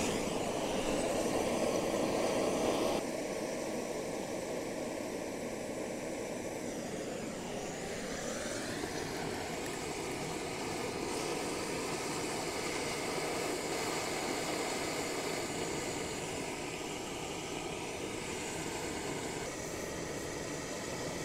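Handheld gas torch burning with a steady hiss, heating an old soldered copper-to-brass joint to melt the solder and take it apart. The hiss drops a little in level about three seconds in.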